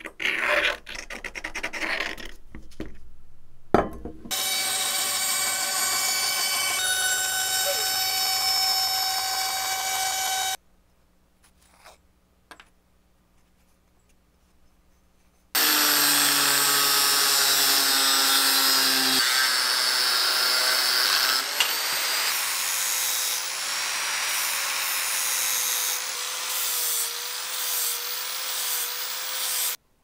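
A marker scratching across a wood board, then a power tool running steadily for about six seconds. After a near-silent pause, an angle grinder with a cut-off disc cuts through flat steel plate: a loud, dense grinding whose pitch shifts about halfway through and then wavers under load until the grinder stops.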